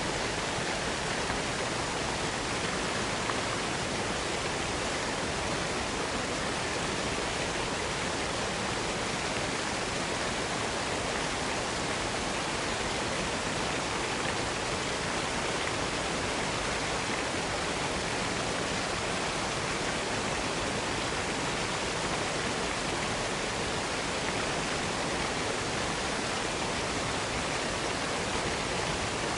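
Waterfall: a steady, even rush of cascading water with no breaks or changes.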